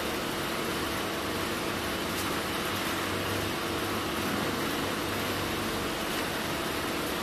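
Peanuts and sugar tumbling in the rotating copper coating pan of a caramelized-nut machine: a steady rushing rattle of nuts over a low hum from the machine.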